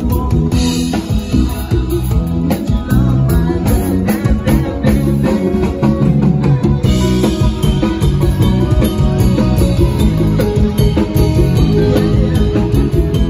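Live band music recorded on a phone: guitar and drum kit playing steadily, with a bass line and some singing.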